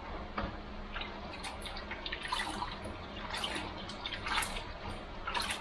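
Water sloshing and splashing in a plastic basin as hands swish and squeeze baby clothes in a fabric-softener rinse, in irregular splashes.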